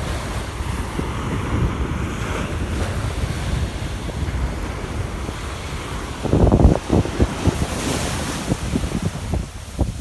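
Small Mediterranean waves breaking and washing up a sandy beach, with wind buffeting the microphone. The wind noise gets louder in a burst about six and a half seconds in, and a hissing wash of surf follows.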